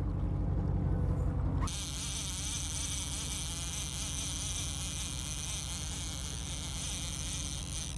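Steady low hum of the boat's engine while trolling, then, after an abrupt change about two seconds in, a steady high-pitched buzzing hum over a hiss.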